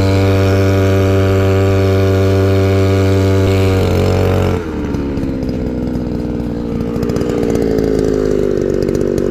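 Red Rhino two-stroke scooter engine running at steady high revs, then dropping off about four seconds in and running on at lower, unsteady revs as the scooter slows to a stop.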